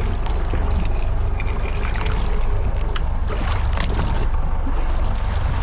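Steady low rumble of the boat while a crab hoop net is hauled up alongside on its line. A few short splashy clicks come about two seconds in and again around three and a half to four seconds, as the net nears and breaks the water's surface.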